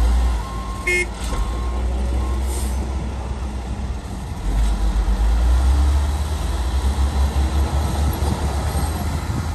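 Heavy diesel engine of a loaded dump truck running as it backs slowly over rough ground. The engine grows louder and heavier from about halfway through. A reversing alarm beeps in the first second and a half, with a short horn toot about a second in.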